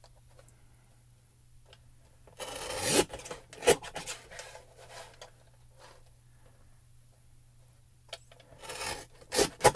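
Paper trimmer blade drawn through burlap: a noisy scrape of about half a second, starting about two and a half seconds in, and another run of scrapes near the end, with a few light knocks between.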